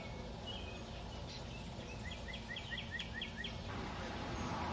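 Songbird singing over a steady low background rumble: a few scattered chirps, then a quick run of about seven repeated notes starting about two seconds in.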